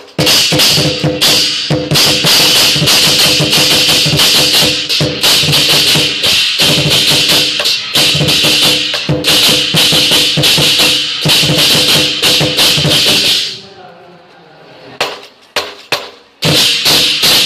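Lion dance percussion: a drum with loud, rapidly clashing cymbals playing a fast, unbroken beat. It stops about three-quarters of the way through, a few single strikes follow, and the full beat starts again near the end.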